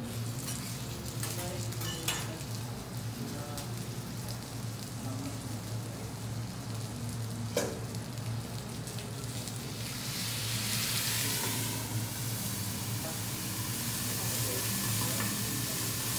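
Lobster sizzling on a steel teppanyaki griddle, with metal spatula scrapes and a sharp metal clink about halfway through. From about ten seconds in the sizzle swells into a louder steaming hiss, over a steady low hum.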